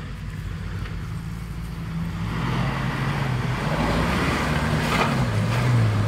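Off-road 4x4's engine running steadily, its pitch wavering a little up and down, with a rushing noise that builds from about two seconds in.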